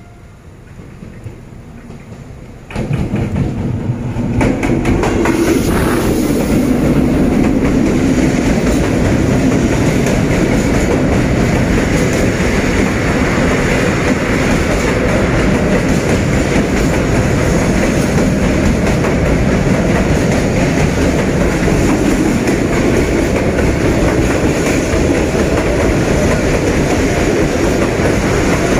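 Freight train hauled by a D20E diesel locomotive passing close by. It is fairly quiet for the first couple of seconds, gets suddenly loud about three seconds in as the train reaches the spot, then runs on as the steady loud rumble and clatter of covered wagons rolling past, with clickety-clack over the rail joints.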